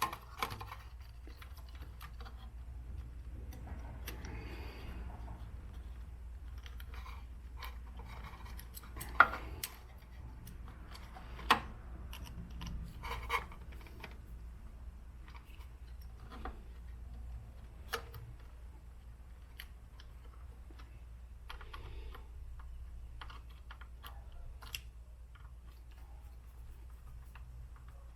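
Scattered light clicks and taps of small parts being handled as wire connectors are fitted to the scroll saw's speed-control circuit board, a few sharper clicks standing out, over a steady low hum.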